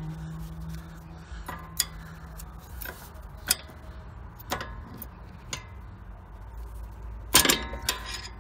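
Open-end wrench clicking and clinking on the steel adjusting nut of a tie rod end as it is worked loose: a string of sharp metallic clicks about a second apart, the loudest cluster near the end.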